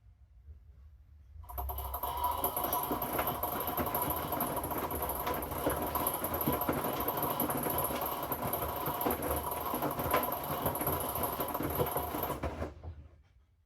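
Hoover front-loading washing machine's inverter motor turning the drum during the wash: a steady motor whine with the load tumbling and clicking. It starts about a second and a half in and stops near the end as the drum pauses.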